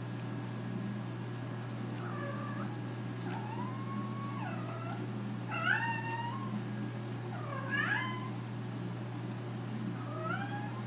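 American Curl cat meowing repeatedly, about six calls a second or two apart, some short and one drawn out, over a steady low hum. They are attention-seeking meows, which the owner takes for boredom.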